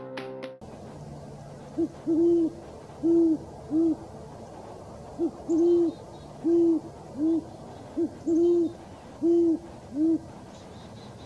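Great horned owl hooting: three series of four deep hoots, each series starting with a quick short note, then two longer hoots and a shorter last one, repeated about every three seconds.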